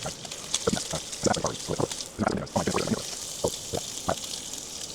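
Beef bacon frying in a pan: a steady sizzle with frequent irregular pops and crackles of spitting fat.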